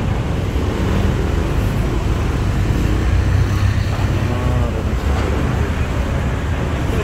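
Steady low rumble of road traffic and a vehicle engine, with a brief faint voice about four and a half seconds in.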